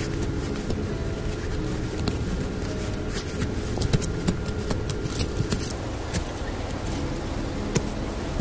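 A wooden digging stick striking and scraping into loose forest soil, with irregular soft knocks and crunches over a steady background hiss.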